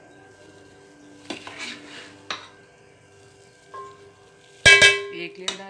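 A ladle knocking and scraping in an aluminium cooking pot as chicken yakhni is spread over par-boiled rice, with a few soft knocks, then one loud metallic clank that rings briefly about three-quarters of the way through.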